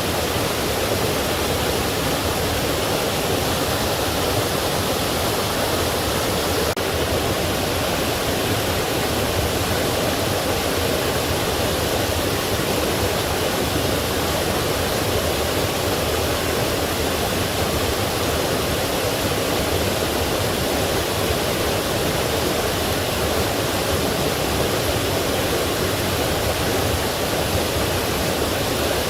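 Forest stream and small waterfall: water rushing and splashing over rocks in a steady, unbroken rush.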